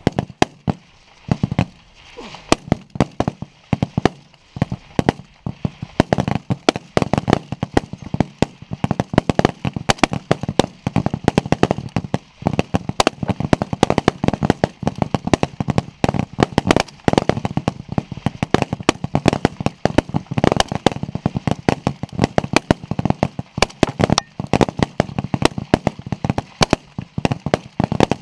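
Many high-power rifles firing along a firing line during a timed rapid-fire string: a dense, irregular run of sharp, overlapping shots, several a second.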